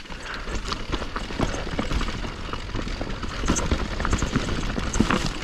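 Mountain bike riding down a rocky trail: tyres crunching over dirt and stones with frequent clicks and knocks from the bike rattling, over a steady low rumble of wind on the microphone.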